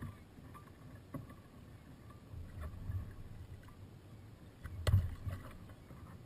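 Small waves lapping and slapping irregularly against the hull of a WaveWalk W500 kayak, with a light click about a second in and a single sharp knock about five seconds in.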